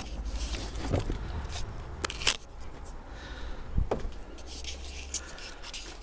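Handling noise of a handheld camera being carried around: scattered clicks and scuffs, the sharpest about two seconds in, over a steady low rumble.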